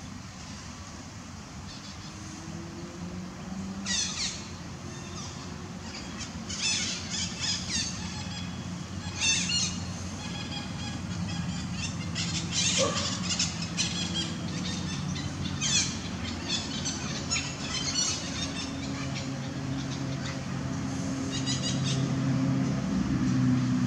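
Outdoor ambience: short bursts of high chirping bird calls every few seconds, over a low engine hum that grows louder near the end.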